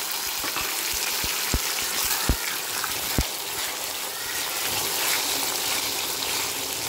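Peanuts, chana dal and urad dal sizzling in hot oil in a pan while being stirred with a plastic spatula, with a few sharp ticks in the first half: the dals and nuts being roasted for a tempering.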